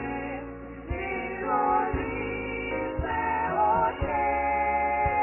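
A four-woman vocal group singing a gospel song in harmony through microphones and a PA, with a low thumping beat about once a second under the voices.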